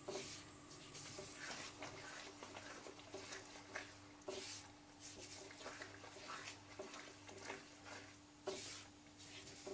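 A spatula stirs thick besan halwa batter in a non-stick pan, with the sugar syrup just being mixed in. It makes soft squelching, scraping strokes, irregular, about one or two a second.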